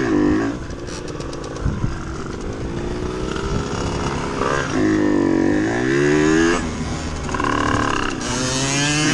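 50cc geared off-road moped engine being ridden, revving up and dropping back several times, its pitch rising and falling in long sweeps.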